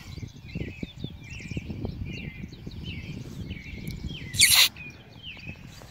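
Small birds chirping over and over in the background over a low rumble of wind on the microphone, with one short, loud burst of noise about four and a half seconds in.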